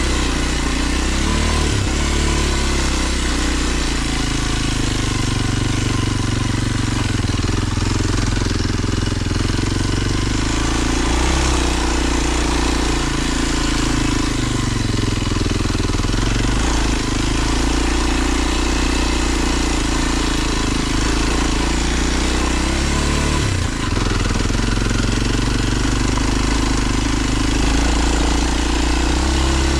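Kawasaki KLX230 dual-sport motorcycle's air-cooled single-cylinder four-stroke engine running at low, fairly steady revs as it climbs a dirt trail. The engine note rises and falls slightly, with a brief dip about three-quarters of the way through.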